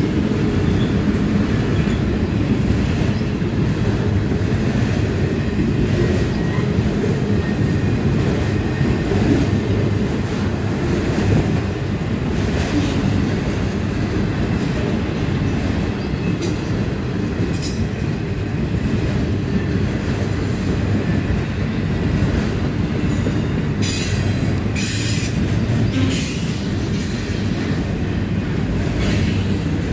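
Long string of autorack freight cars rolling past at track speed: a steady, loud rumble of steel wheels on rail. High-pitched wheel squeals come in briefly about halfway through and again near the end, with a few sharp clicks just before them.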